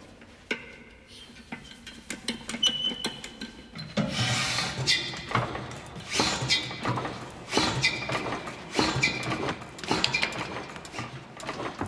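Early single-cylinder MAN diesel engine being started. A few clicks and a short high squeak come as its valves and levers are worked, then from about four seconds in a slow, heavy metallic knocking with ringing, roughly once or twice a second, as it turns over and fires.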